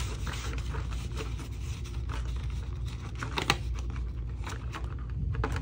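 Dollar bills and the ring binder's cash envelopes being handled: rustling and crinkling of paper and plastic as bills are slid into a pocket and pages are gripped, with a sharper click about three and a half seconds in. A steady low hum sits underneath.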